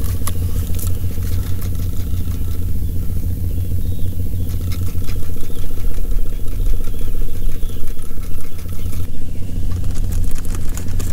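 The kayak's integrated Minn Kota trolling motor running with a steady, low hum that gets louder about halfway through, with a few light clicks over it.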